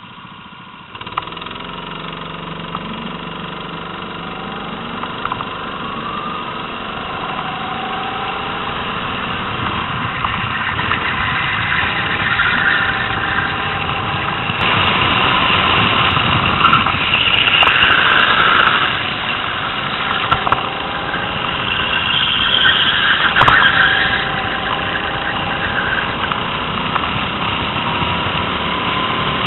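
Rental go-kart's small petrol engine heard from the driver's seat, jumping louder about a second in and climbing in pitch as the kart pulls away. From about halfway it runs louder and harder, rising and falling with the throttle.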